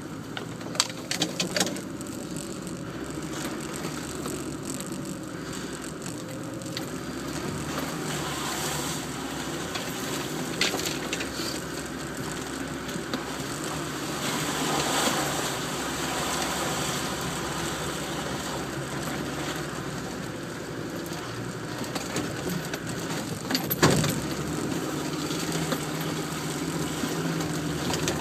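Land Rover Defender engine running at low speed while the vehicle crawls over rough, muddy off-road ground, heard from inside the cab. Sharp knocks and rattles from the body come near the start, and a single loud knock comes about 24 seconds in.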